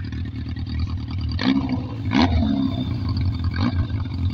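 Yamaha XJR1200's air-cooled inline-four idling through a short homemade exhaust with a deep, steady rumble. A brief throttle blip comes about one and a half to two seconds in, with a few sharp cracks.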